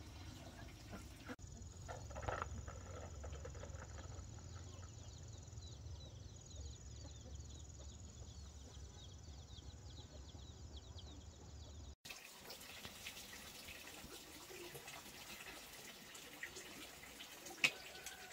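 Water trickling and dripping, with scattered small clicks and, through the middle part, a steady low hum.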